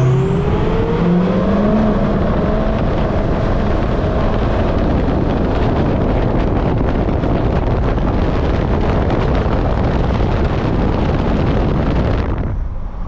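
A 2003 Ford F350's 6.0 L turbodiesel V8 accelerating, its pitch rising over the first few seconds, then steady driving noise. The upper part of the sound drops away shortly before the end.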